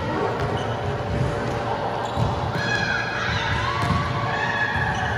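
Volleyball being played in a large, echoing sports hall: a few sharp hits of the ball, with players' voices in the background.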